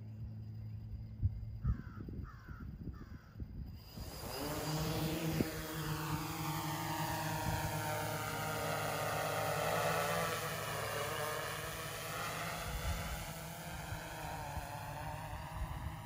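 Custom-built quadcopter's motors and propellers spinning up about four seconds in, then a steady propeller buzz whose tone sweeps slowly down and back up as the drone flies. Before that, a low hum with three short chirps.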